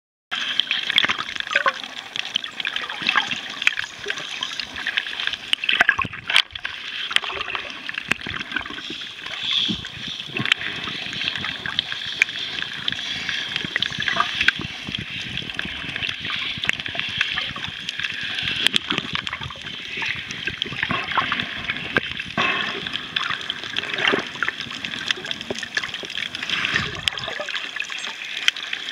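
Underwater sound heard by a swimmer's submerged camera: a steady wash of water noise scattered with many small crackling clicks.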